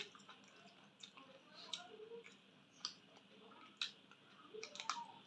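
Faint eating sounds: a person chewing a mouthful of rice and chicken curry, with a scattering of short wet mouth clicks and smacks, roughly one every second.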